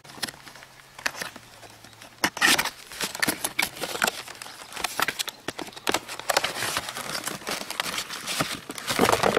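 A cardboard box being opened by hand, an inner box sliding out of the outer sleeve with rustling, scraping and crinkling. A few light clicks come first, then about two seconds in the handling turns to a busy run of scrapes and crackles.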